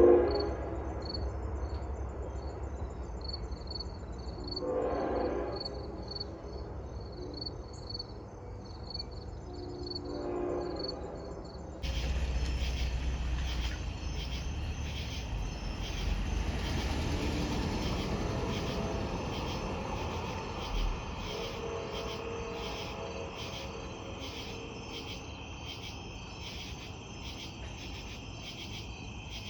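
Long Island Rail Road diesel train sounding its horn in three short blasts about five seconds apart, the first the loudest, then from about halfway through running past on the bridge with a steady rumble and rattle. Crickets chirp throughout.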